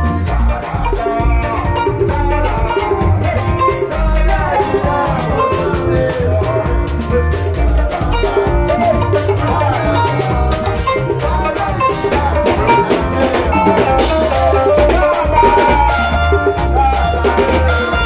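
Live band playing upbeat Ghanaian gospel praise music: electric keyboard, drum kit, bass guitar and a hand drum, with a steady dance beat.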